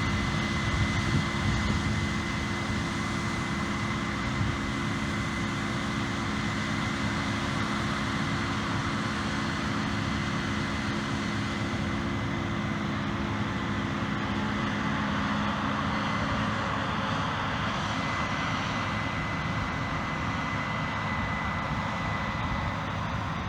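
Diesel harvest machinery running steadily, with a thin high whine over it. Its engine note fades out about two-thirds of the way through, leaving a steady rushing noise.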